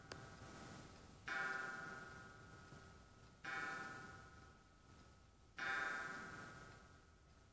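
Antique Kienzle German wall clock striking the hour on its coiled gong: three strikes about two seconds apart, each ringing and fading slowly, with the tail of an earlier strike at the start.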